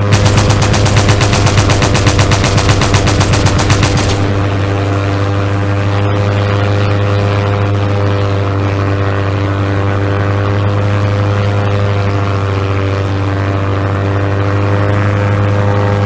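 Rapid machine-gun fire sound effect, a fast even stream of shots, for about the first four seconds, over a steady engine-like hum that carries on alone for the rest.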